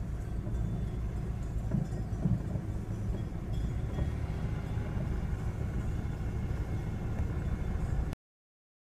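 Steady low rumble of a car moving at walking pace. It cuts off suddenly about eight seconds in.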